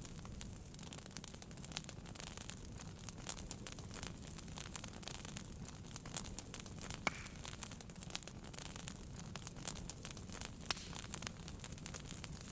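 Wood fire burning in a fireplace, crackling with a steady stream of small pops and snaps over a low rumble of flame, with a sharper pop about seven seconds in.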